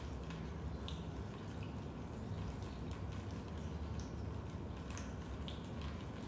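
Raindrops dripping into a basement: single drips and small plinks at irregular intervals over a steady low rumble.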